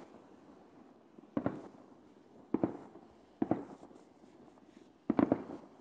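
Fireworks going off: four bangs about a second or so apart, each a quick cluster of two or three sharp cracks followed by a short rolling echo, the last near the end the loudest.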